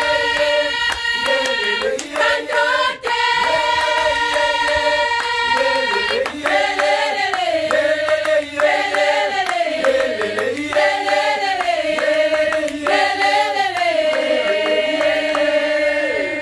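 Mixed-voice choir singing a cappella in harmony, with hand claps. Long held chords give way about six seconds in to short rising-and-falling phrases repeated every two to three seconds.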